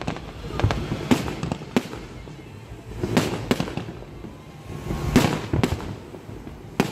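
Fireworks display: aerial shells bursting in a string of sharp bangs that come in clusters about every two seconds.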